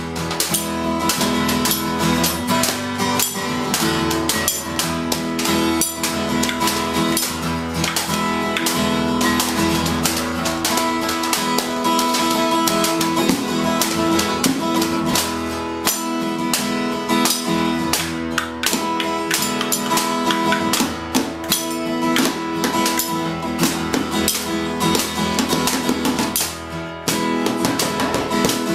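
Background music led by a quickly strummed acoustic guitar.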